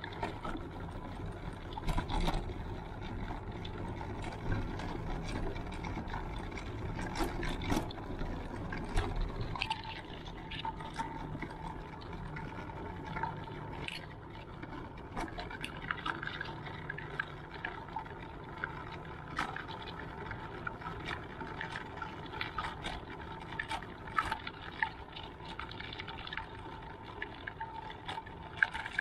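Electric mobility scooter driving over rough asphalt: a steady motor whine, with frequent sharp clicks and rattles as its solid tyres jolt over the surface.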